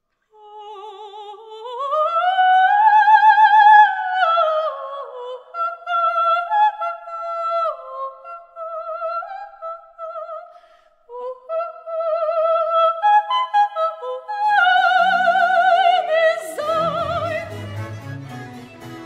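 A soprano sings alone, with wide vibrato, climbing to long high notes and then winding down through shorter phrases. Near the end a small chamber ensemble of harpsichord, violins, cello and double bass comes in under and after her.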